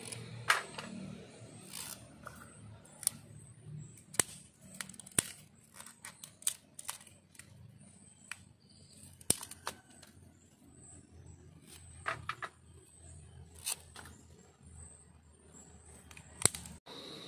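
Kitchen knife cutting through thin fresh bamboo shoots and their sheaths: a string of sharp, irregularly spaced snaps and clicks as the blade bites through the stalks.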